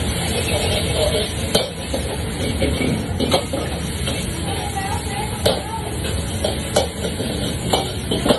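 Metal ladles scraping and clanking against woks as egg fried rice is stir-fried over lit wok burners. A steady low rumble of burner and extractor hood runs under sharp clanks that come every second or so.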